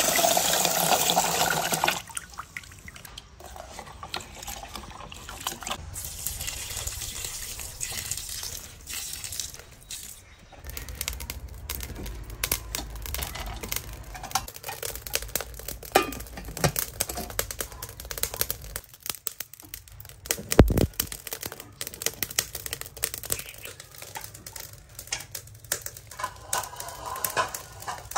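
Water pouring onto raw rice in a metal mess tin, loud for about the first two seconds. After that, quieter scattered clicks and knocks.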